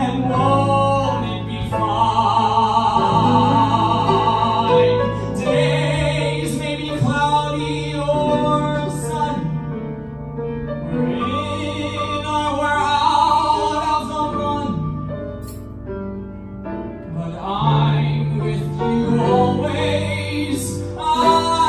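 A male vocalist singing a slow ballad with long held notes and vibrato, accompanied by a grand piano.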